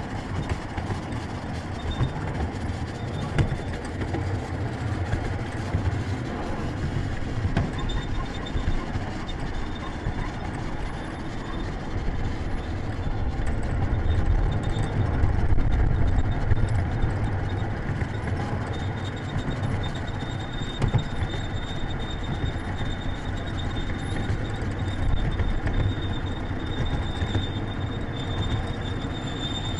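Ride-on miniature train rumbling and clattering along the track, heard from aboard a passenger car, swelling louder about halfway through. A faint, steady high tone runs through the second half.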